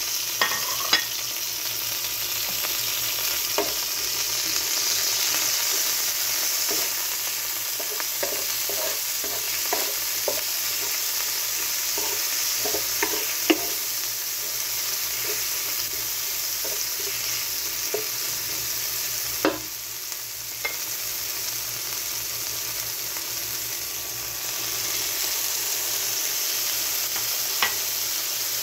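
Chopped tomatoes, onion and spices sizzling in hot oil in a nonstick pan as a tadka, with a spatula scraping and tapping the pan as it stirs. About two-thirds through there is a thump, and the sizzle briefly quietens before picking back up.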